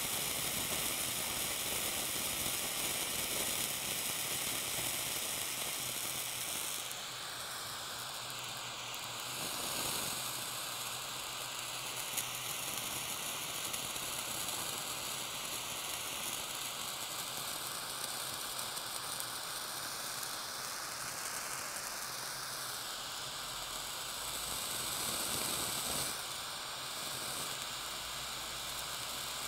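Butane micro torch flame hissing steadily against a block of blue cheese, the hiss changing in tone a few times as the flame is moved.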